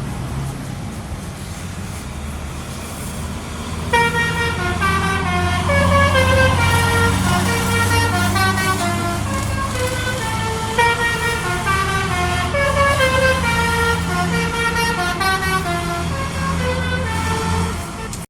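Tour bus basuri telolet horn, the multi-trumpet musical horn of Indonesian buses, playing a fast melody of changing notes. It starts about four seconds in over a low steady rumble and stops just before the end.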